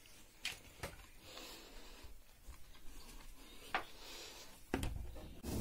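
Handling and walking noise as a bowl is picked up and carried: a few soft clicks and knocks, faint breaths every couple of seconds, and a louder thump near the end.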